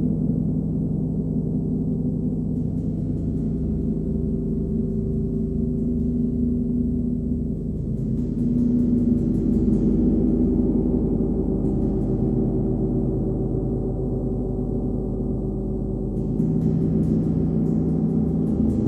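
A 39-inch Nepalese wind gong ringing with a dense, sustained shimmer of overlapping low tones and a slow throbbing pulse underneath. It is struck again with a hard rubber ball mallet about eight seconds in and again near the end, each stroke swelling the wash louder.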